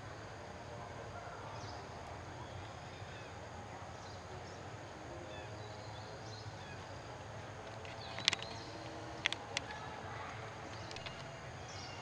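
Outdoor forest ambience: faint scattered bird chirps over a steady background hiss and a steady high tone. A few sharp clicks, the loudest sounds, come a little past the middle.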